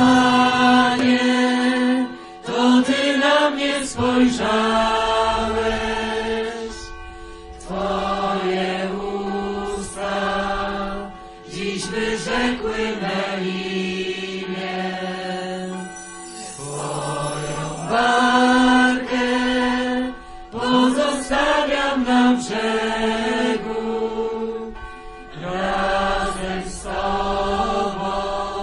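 Voices singing a slow, repetitive worship chant in phrases of a few seconds each, with short breaks between them.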